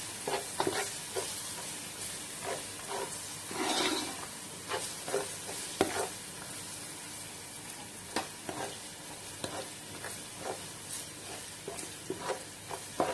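Green peppers, onion and garlic sizzling gently in oil over low heat, with a spoon stirring through them and scraping and knocking against the pan in short, irregular strokes.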